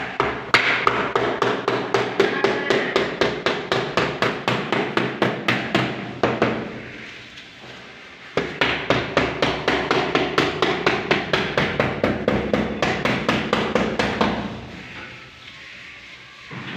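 Soft-faced mallet tapping uPVC glazing beads into the window frame to lock the glass of a fixed window in place. Quick, even taps at about four or five a second, in two runs of about six seconds each with a short pause between.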